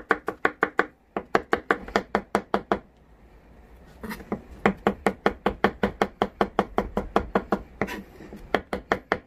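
Kitchen knife mincing a crushed garlic clove on a cutting board: rapid, even chopping strokes, about four or five a second, with a short pause about three seconds in before the chopping resumes.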